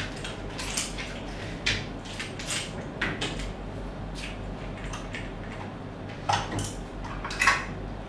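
Lockout-tagout gear being handled and taken off a valve: irregular metal clicks and clinks of padlock shackles and a steel lockout hasp, with louder clinks near the end.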